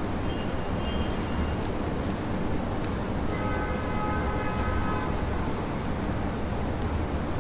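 Steady rain hiss over a low city traffic rumble. A faint pitched tone sounds briefly near the start, and a clearer one, several notes stacked, is held for about two seconds in the middle.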